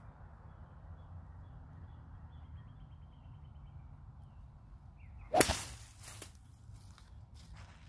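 A golf driver swung at a teed ball on a hitting mat: a short swish, then one sharp crack of the clubface striking the ball about five seconds in.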